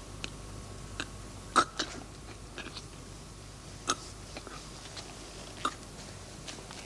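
A few scattered sharp clicks and knocks, about eight in all, the loudest about a second and a half in, over a faint steady hum.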